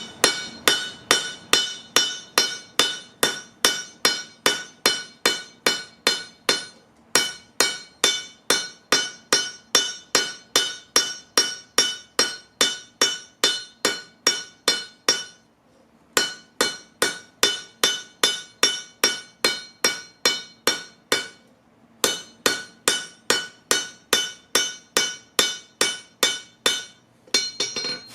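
Hammer blows on a railroad track anvil, about three a second, each leaving a clear metallic ring at the same pitches. The runs of blows break off briefly three times.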